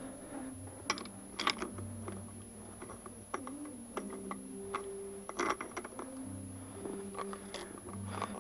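Scattered light clicks and metal taps as motorcycle front fork parts, an aluminium fork slider and its internals, are handled and fitted together by hand, over a faint steady hum.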